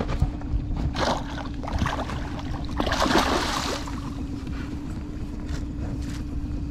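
A small motor's steady hum with a low rumble, and short rushing noises about a second in and again about three seconds in.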